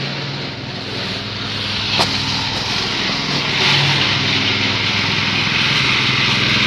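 Small engine-driven fodder chopping machine running steadily, with a sharp click about two seconds in. About halfway through, a louder rushing noise joins the engine hum.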